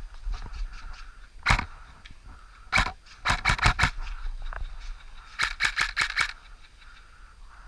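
Airsoft guns firing: a single shot about a second and a half in, then two rapid bursts of seven or eight shots each, with sharp cracks and no deep boom.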